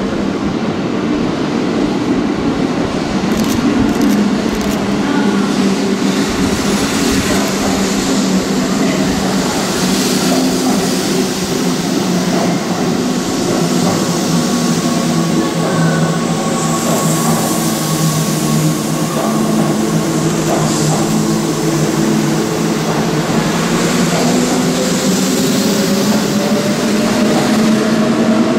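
Keihan old 3000 series electric train running through an underground station platform without stopping: a steady, loud rumble of wheels and running gear with a low hum, and one tone rising in pitch near the end.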